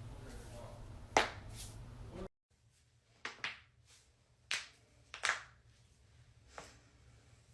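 Joints cracking during a chiropractic adjustment: one loud sharp crack about a second in, then a run of five more cracks and pops spread over the next few seconds.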